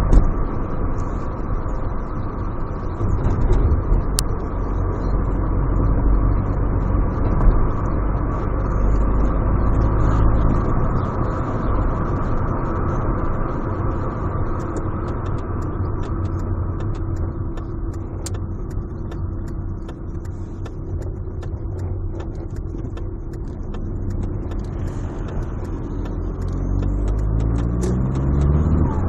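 Volkswagen Golf 4 TDI's turbocharged diesel engine running with a steady high-pitched turbo whistle over the engine's low rumble. The engine note rises over the last few seconds as it speeds up.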